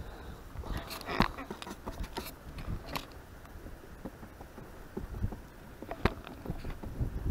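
Outdoor wind rumbling on the microphone, with scattered light clicks and knocks from a brush and the wooden pochade box being handled while paint is mixed; the sharpest knocks come about a second in and about six seconds in.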